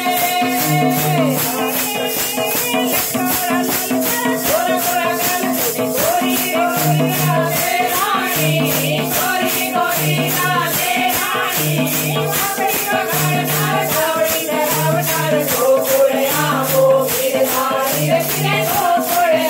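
Women singing a Gujarati devotional song together, accompanied by a steady beat of wooden kartal clappers with jingles. A short low note repeats under the melody.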